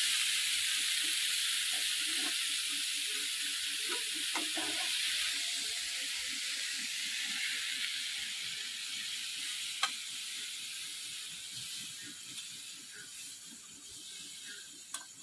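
Fried soya chunks with capsicum and tomato sizzling in a hot metal kadai that is off the flame; the sizzle fades away steadily. A metal spatula scrapes and taps against the kadai as the food is scooped out, with a sharp tap about ten seconds in.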